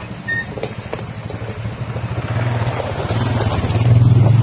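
ATV engine running and drawing closer, getting steadily louder toward the end. A few sharp clicks sound in the first second or so.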